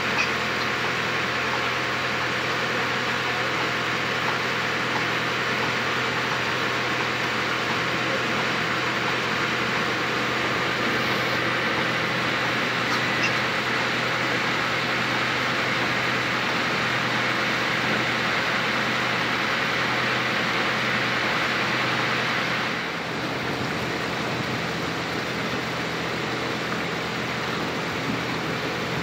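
Passenger launch boat's engine running steadily underway, a low hum under a hiss of water and wind. A little past two-thirds through, the sound drops slightly and the hiss thins out.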